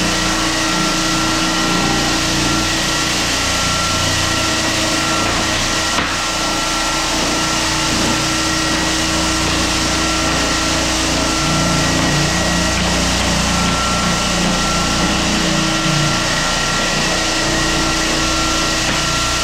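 Hyper Orbit floor sander running steadily over a pine floor on 100-grit silicone carbide paper, a constant motor hum with fixed tones over a broad sanding noise, with one brief click about six seconds in.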